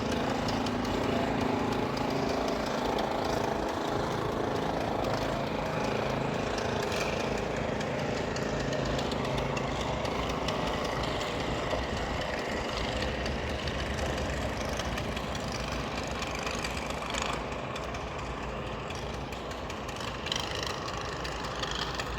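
An engine running with a steady pitched hum that fades over the first several seconds, leaving a steady outdoor rumble and hiss that slowly drops off.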